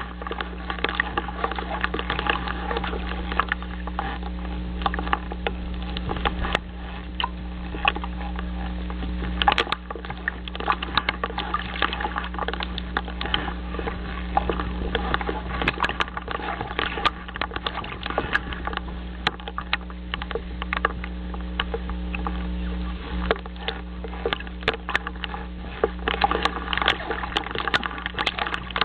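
Constant irregular crackling and clicking over a steady low electrical hum, picked up by an outdoor nest-camera microphone.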